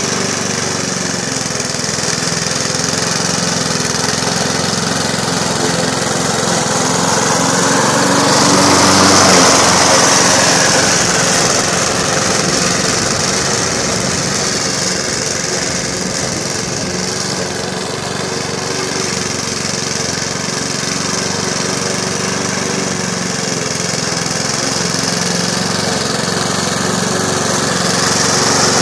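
Radio-controlled lawnmower running steadily as it cuts grass, its engine holding an even pitch, louder for a few seconds around nine seconds in.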